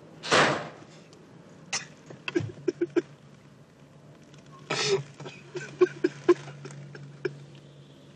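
A series of knocks and clicks, with a brief loud rush of noise just after the start and another about five seconds in.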